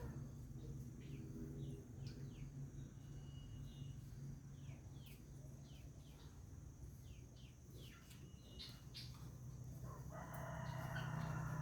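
A rooster crowing: one long crow starting about ten seconds in, and a fainter crow about a second in. Small birds chirp with short, falling notes throughout, over a steady low hum.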